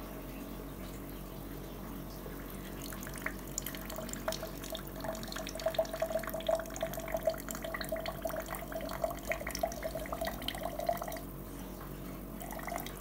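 Water drops from a rain-curtain installation pattering steadily, with a rapid run of ringing plinks from about four to eleven seconds in as drops land in a hand-held drinking glass. A steady low hum runs underneath.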